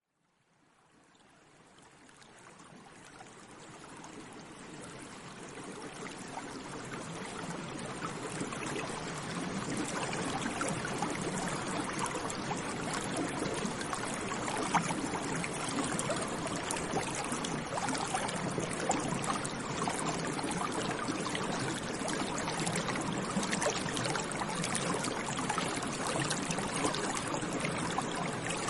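A shallow stream running and trickling over stones, a steady babbling rush fading in over the first several seconds.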